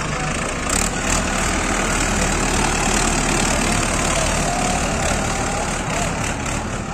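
Hindustan 60 tractor's diesel engine running steadily as the tractor is driven slowly, with people talking in the background.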